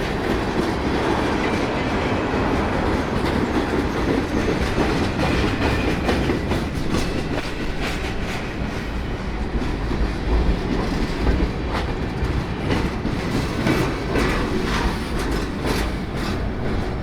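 CN freight train cars rolling past, wheels clacking over the rail joints, with irregular sharp bangs and rattling from the cars.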